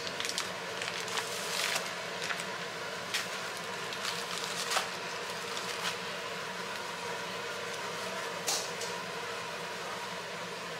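Plastic wrapping crinkling and thin sheets of filo pastry rustling in short, irregular crackles as a rolled pack of filo dough is opened and unrolled by hand, over a steady background hum.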